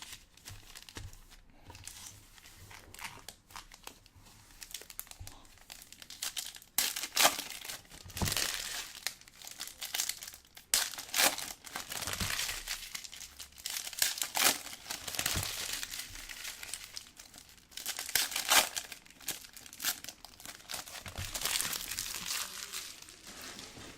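Plastic trading-card pack wrappers crinkling and tearing as packs are ripped open and handled, in irregular bursts of crackling.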